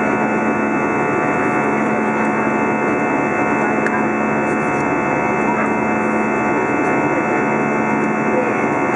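Airbus A320 cabin noise in flight: the steady drone of the jet engines and rushing airflow, with a constant low hum underneath.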